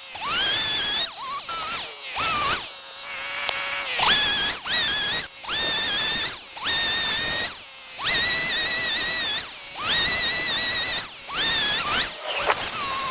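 Carving chainsaw revved in repeated short bursts, each about a second long, whining up in pitch as the throttle opens and then holding before it drops off. Roughly a dozen bursts come with brief gaps between them.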